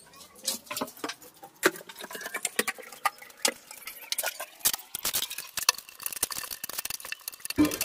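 Trowel stirring cement mortar in a small bucket: irregular wet scrapes and sharp clinks as the blade knocks against the bucket's sides.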